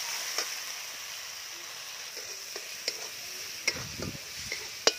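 Ground onion-garlic masala paste sizzling steadily in hot oil in a metal kadhai while it is stir-fried, the metal spatula scraping and clicking against the pan a few times, once near the end.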